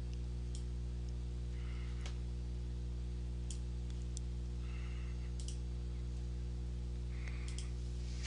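Computer mouse and keyboard clicks used while editing on a computer: scattered single clicks, some in quick pairs, over a steady electrical hum.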